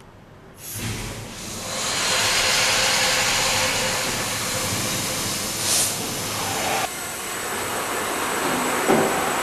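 Steam hissing into a steam-heated press for old black beeswax combs as its steam supply valve is opened. It comes in about half a second in, builds over a second or so, then holds as a loud steady hiss.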